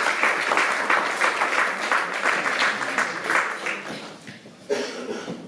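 Audience applauding, the clapping thinning and fading out about four seconds in.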